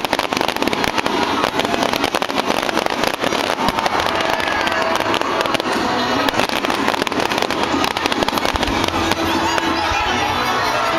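Fireworks display going off: a dense, continuous rapid crackle of many small bursts.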